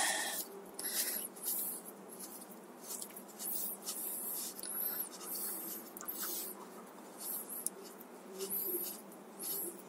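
A series of short, scraping rasps, one or two a second, as a bicycle bottom bracket is unscrewed from the frame with a tool, its threads grinding as it turns.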